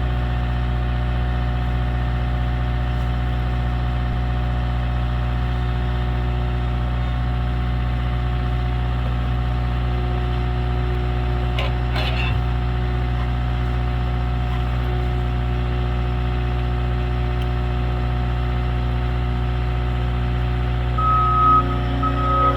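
Skid steer engine running steadily at a constant speed. A few high-pitched backup-alarm beeps come near the end.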